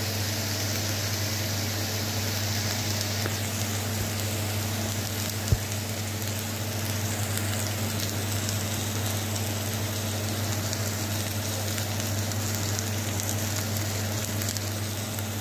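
Ground onion and green chilli paste sizzling steadily in mustard oil in an iron kadhai, over a steady low hum. A single sharp tap about five and a half seconds in.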